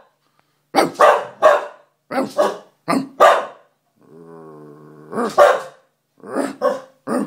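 Scottish terrier barking in quick bursts of two or three barks. About four seconds in there is a low, steady growl lasting about a second, then the barking resumes.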